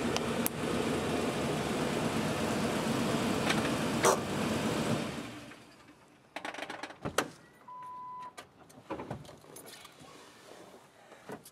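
A car running close by, with a sharp clack about four seconds in, fading away after about five seconds. Then come scattered clicks and knocks and a short steady beep.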